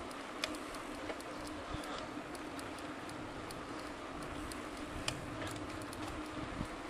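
Riding a bicycle on an asphalt road: steady rolling and wind noise with a faint steady hum, broken by scattered light clicks and rattles.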